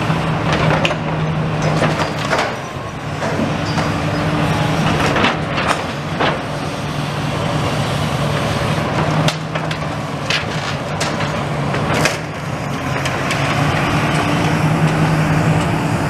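Heavy demolition machinery running steadily with a low hum, with intermittent cracks and crunches of masonry and debris being broken and pulled down.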